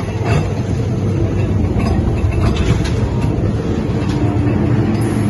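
Ghost train car rolling along its track, a steady low rumble with scattered clicks and clacks from the wheels.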